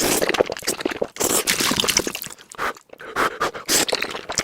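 Noodles being eaten in big bites, sped up four times: a fast run of wet chewing clicks and crunches with a brief pause a little before three seconds in.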